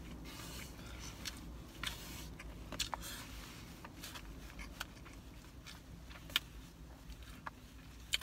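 Plastic fork scraping and clicking against a foam takeout container of rice, with soft chewing, over a low steady hum. The scattered clicks are loudest about six seconds in.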